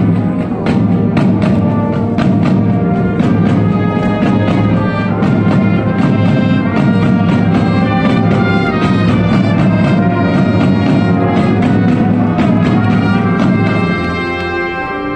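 Marching band playing live: brass horns holding chords over frequent percussion strikes. About fourteen seconds in the percussion drops away and the music gets quieter, leaving held brass notes.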